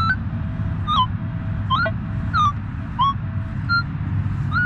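Minelab E-Trac metal detector sounding on a buried target with each swing of the coil: short higher tones that slide up in pitch, about one every two-thirds of a second, broken by brief low flat grunts of its iron tone. The mixed tones show an unsteady signal bouncing between iron and a good target, over a steady low rumble.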